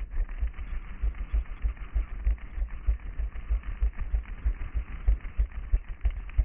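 A runner's footfalls on a paved path, heard as dull low thuds about three a second through a head-mounted GoPro, with a steady hiss over them.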